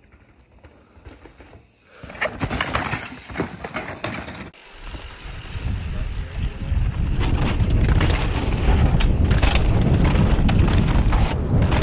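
Mountain bike descending a rough rock trail, heard from a camera on the rider: wind rushing over the microphone with the tyres and bike clattering over rock. It begins suddenly about four seconds in, grows louder as speed builds, and stays loud through the second half.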